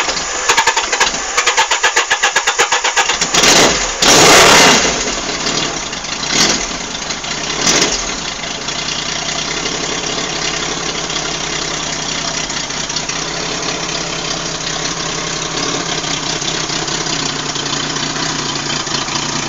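Yamaha XS850 inline-three engine running with no mufflers on an open exhaust: it fires with a rapid string of pops as it starts, is revved in a few short blips, then settles after about eight seconds into a steady, loud idle.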